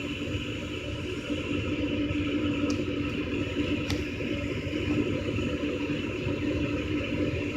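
Gas furnace's draft inducer motor running with a steady hum during the ignition sequence, while the hot surface igniter heats before the gas valve opens.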